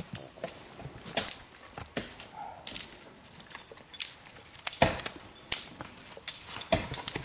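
Flint and steel struck in sharp, irregular scraping strikes, about a second or so apart, throwing sparks onto char cloth to light a tinder bundle.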